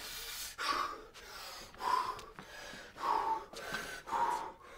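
A man breathing heavily in about four loud gasps, a second or so apart.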